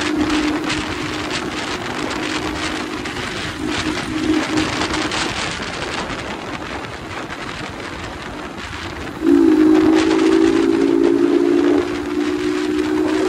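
MH Drift 150 motorcycle engine running at a steady cruising pace: a steady droning tone with a rush of noise over it. About nine seconds in the drone suddenly grows louder, then holds.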